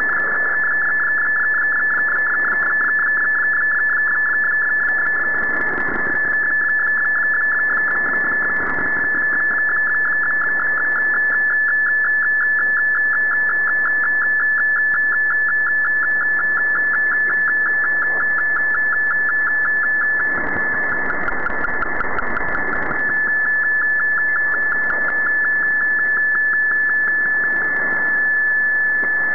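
Shortwave digital-mode picture transmission (an MFSK image sent by Shortwave Radiogram): a steady, fast-fluttering data tone near 1.7 kHz over shortwave static that swells and fades.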